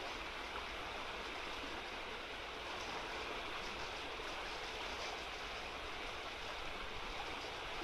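Small, fast-flowing river rushing steadily over a shallow, broken-water run.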